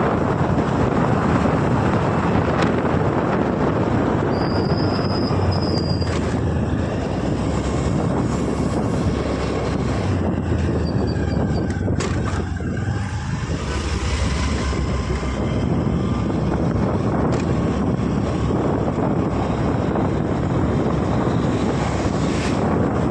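Wind rushing over the microphone of a moving Honda Activa scooter, with its single-cylinder engine running underneath. About twelve seconds in there is a short clatter as the scooter rolls over a steel drain grating.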